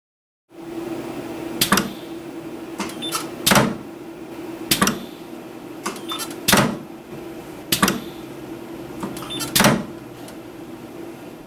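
Opposed pneumatic weld head on a capacitive discharge resistance welder, cycling repeatedly while spot-welding stainless steel screen mesh. It gives six loud sharp clicks, one every one to two seconds, with smaller clicks between them, over a steady low hum.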